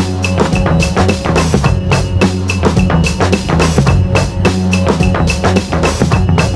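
Background music with a steady drum-kit beat over a deep bass line.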